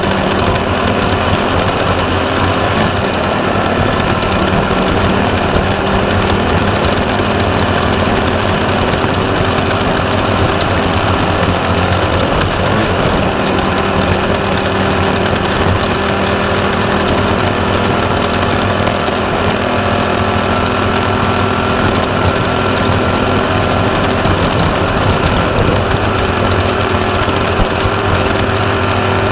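Class 1/2-1600 desert race buggy's air-cooled 1600 cc VW engine running hard at a steady pitch, with heavy rattling and vibration of the car over the course.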